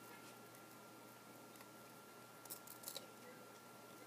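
Near silence with a faint steady high-pitched tone, broken about two and a half seconds in by a few faint crisp clicks of trading cards being slid and flipped in the hand.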